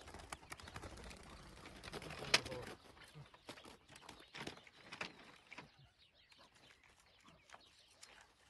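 Chukar partridges calling softly, with scattered clicks and knocks and one sharp click about two and a half seconds in.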